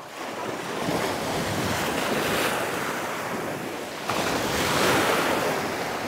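Black Sea waves breaking and washing in at the shore, swelling about a second in and again, louder, about four seconds in, with wind buffeting the microphone.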